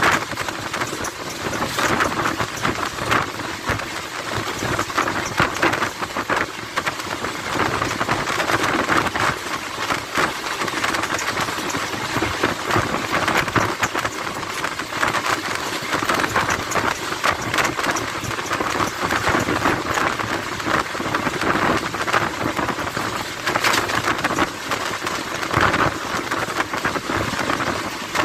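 An Indian Railways express passenger coach running at speed, heard from its open doorway: a steady rush of wind and rolling wheels on the rails, with rapid clattering throughout.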